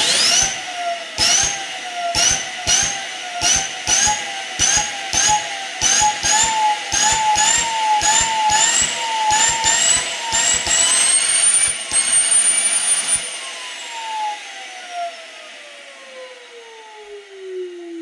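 Small 3-inch-rotor Tesla turbine driven by compressed air fed in short hissing bursts about twice a second, its high whine stepping up in pitch with each burst as the rotor spins up past 50,000 rpm. About 13 seconds in the air stops and the whine glides steadily down as the rotor coasts.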